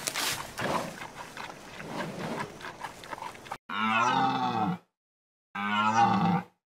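A large hoofed animal bellowing twice, each call a drawn-out, arching bellow of about a second with a short gap between. They come after a stretch of low crackling and rustling noise.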